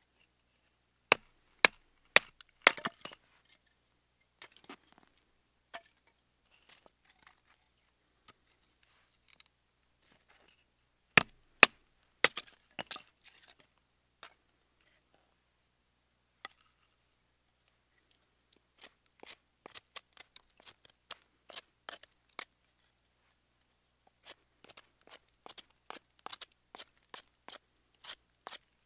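Knife cutting and splitting a stick of firewood into kindling: sharp wooden knocks and cracks. A few loud ones come in the first seconds and again around eleven seconds in, then a long run of quicker, lighter ones fills the last ten seconds.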